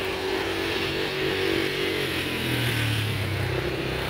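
Street traffic: motor vehicle engines running as vehicles pass close by, with a deeper engine note swelling about two and a half seconds in.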